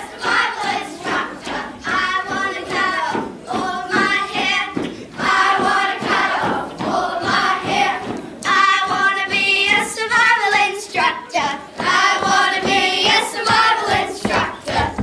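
A group of children singing together in short phrases with brief breaks between them, with thuds underneath.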